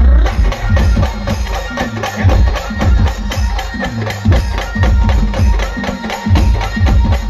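Indian brass band playing a film-style tune: sustained horn and keyboard melody over a heavy, steady drum beat with shakers and small percussion.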